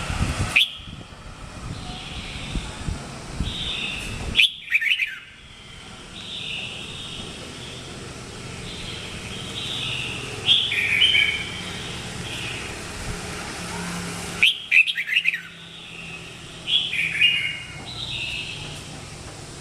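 Red-whiskered bulbul singing: short, bright warbled phrases repeated every second or two, broken by a few sharp clicks.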